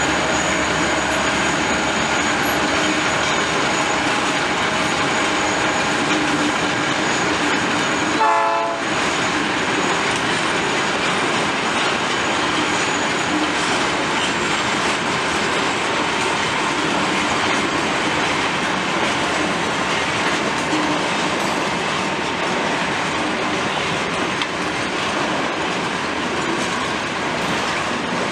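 Loaded freight train hauled by a GM GT22CW diesel locomotive running past, with wheels clacking over the rails and a steady mechanical din. Several steady tones sound through the first eight seconds and end at a short break about eight seconds in.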